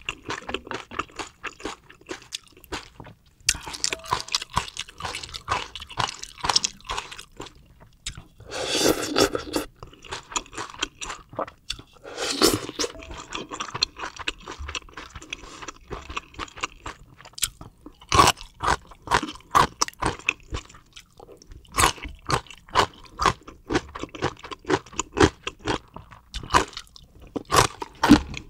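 Close-miked chewing of crunchy food: many short crisp crunches in quick succession, with two longer hissy sounds about nine and twelve seconds in.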